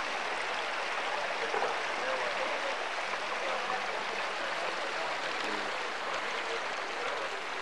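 Steady rushing background noise with faint, indistinct voices in it.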